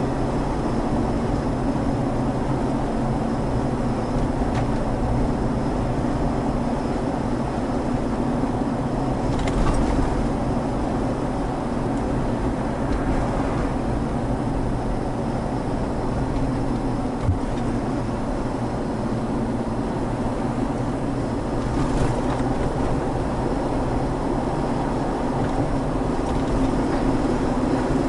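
Steady road and engine noise inside the cabin of a Toyota 4Runner driving along a highway, a constant low drone with a few faint brief knocks.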